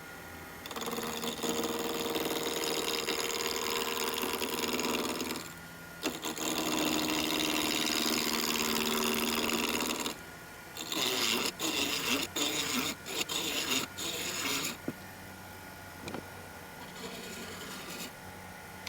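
Small electric power tool working wood. It runs steadily twice for about four to five seconds each, then in a string of short on-off bursts, and ends in a low hum.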